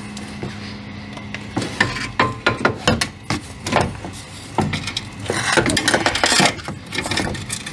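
A new front quick-strut assembly being handled into the wheel well: irregular metal knocks and clatter as it bumps the suspension and body, with a stretch of scraping past the middle.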